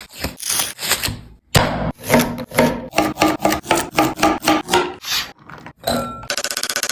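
Papery husk rubbed and torn off a fresh corn cob, then a knife slicing the kernels off the cob against a wooden board in quick strokes, about four a second. Near the end comes a rapid patter of the loose kernels dropping into a glass bowl.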